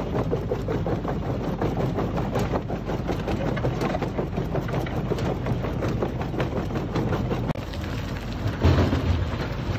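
Screencore XL Dual-Power jaw crusher running: a steady machine drone under a constant clatter of broken stone and rubble moving through the machine. Near the end, crushed stone pours off the conveyor onto the stockpile, with a few heavier thuds about nine seconds in.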